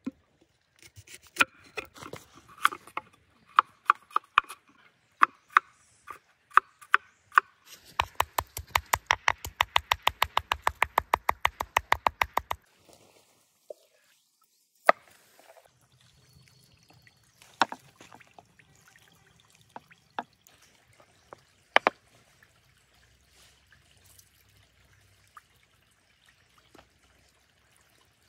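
Steel cleaver striking a wooden chopping board while garlic is cut. Scattered single knocks come first, then a fast, even run of chops at about ten a second for about four seconds as the garlic is minced, then a few separate knocks.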